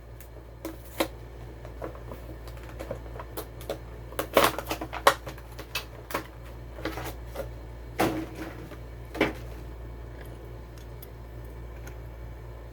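Plastic blister packaging and card backing of a Hot Wheels Car Culture 2-pack being handled and opened: irregular clicks and crackles of plastic, busiest about four to five seconds in, over a steady low hum. The clicking stops a little after nine seconds in.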